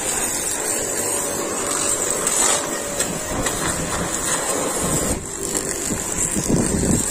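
High-pressure washer jet spraying water onto a steel backhoe loader bucket: a steady hiss, with a motor running underneath.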